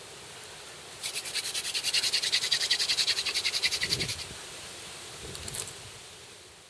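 Rapid, evenly pulsed high-pitched chirping, like a calling insect or frog, in a run of about three seconds starting a second in, then dying away to faint sounds that fade out.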